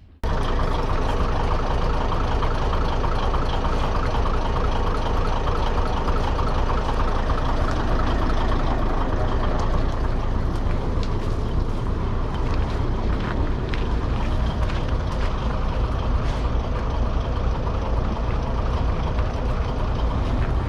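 Kominato Railway diesel railcar running along the line: a steady engine drone with rolling wheel noise, and a few sharp clicks past the middle.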